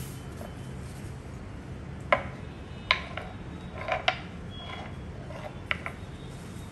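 Glass tumbler and small glass bowls set down and shifted on a wooden serving board: about six sharp clinks and taps, starting about two seconds in.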